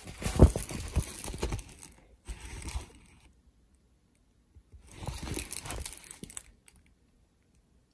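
A large diamond-painting canvas and its clear plastic cover film crinkling and rustling as it is lifted and bent, in three bursts separated by silent gaps, the loudest at the start.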